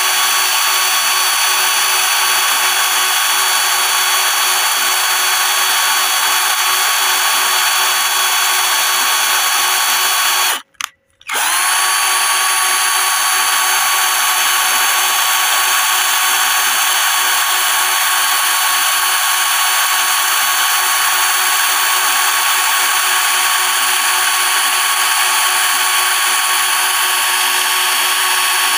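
Electric drill running at steady full speed with a high, constant motor whine. About eleven seconds in it cuts out for under a second, then spins back up to speed.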